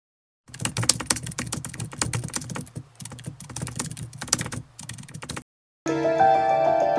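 Typing sound effect: rapid, uneven keystroke clicks for about five seconds. After a brief gap, intro music with held notes starts near the end.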